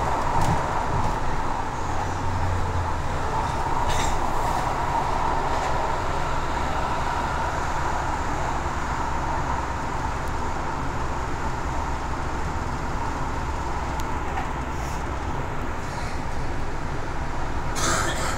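Metro train running between stations, heard from inside the carriage: a steady rumble of wheels on rail with a faint steady whine, and a couple of brief clicks.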